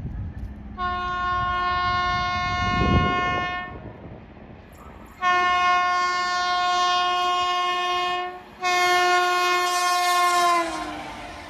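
WAP7 electric locomotive's horn sounding three long blasts as the express approaches at speed, the last one dropping in pitch as the locomotive passes. The rush of the train going by follows near the end.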